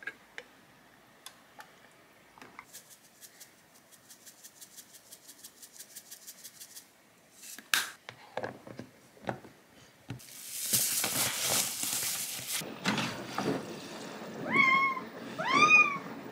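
A domestic cat meowing twice near the end, each call rising and then falling in pitch. Before it come a quick run of light clicks, a few knocks and about two seconds of loud hissing rush.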